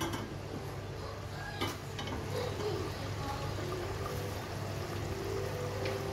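Curry gravy bubbling at a boil in an open pot on a gas stove, over a steady low hum, with one faint tick about one and a half seconds in.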